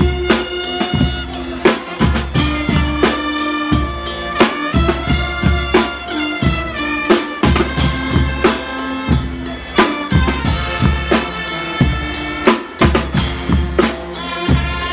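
Guggenmusik band playing loudly. Brass such as trumpets holds chords over a driving drum-kit beat of snare, bass drum and cymbals.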